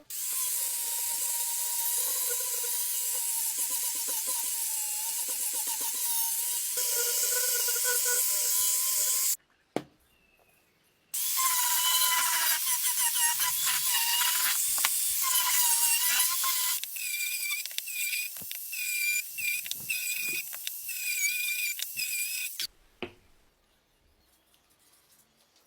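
A high-speed power tool whines steadily as it cuts into wood. It runs in three stretches with short breaks between them, and the last stretch is higher in pitch.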